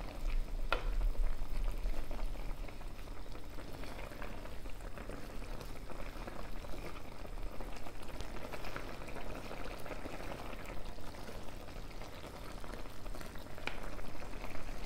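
Chicken gravy bubbling and sizzling in a pot as it simmers and is stirred with a wooden spatula. Two light knocks of the spatula against the pot, one just after the start and one near the end.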